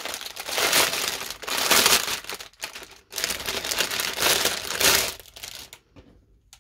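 Thin clear plastic bag crinkling and rustling as hands open it and pull out a bundle of embroidery floss skeins, with a brief pause partway through; the rustling dies away near the end.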